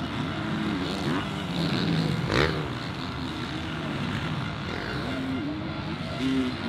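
Several motocross bikes racing, their engines revving up and down with several pitches overlapping. There is a short, loud burst about two and a half seconds in.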